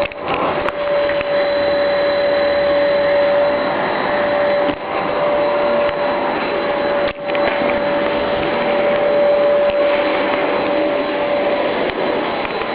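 Household vacuum cleaner running steadily with a constant whine over its motor noise; the level dips briefly twice.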